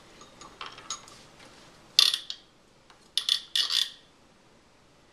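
Plastic toys on a baby activity center clicking and rattling as the baby handles them, with a few small clicks at first, a loud rattle about two seconds in and another burst of rattling clacks around three to four seconds in.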